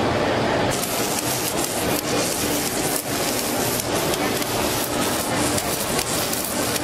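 A hand tool scrapes granular welding flux off the weld beads. About a second in this gives way to the steady, dense crackling hiss of automated submerged arc welding running under its flux.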